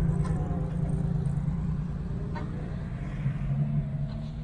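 Unimog truck's engine running with a low rumble, fading steadily as it goes.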